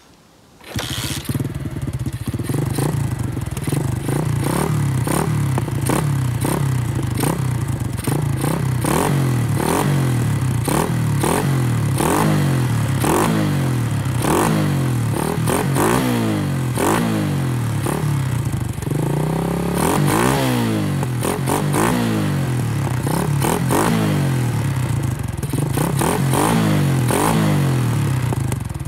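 125 cc pit bike's single-cylinder four-stroke engine, fitted with an Akrapovič-style aftermarket exhaust, kick-started and catching about a second in. It is then blipped on the throttle again and again, with a longer rev about two-thirds of the way through.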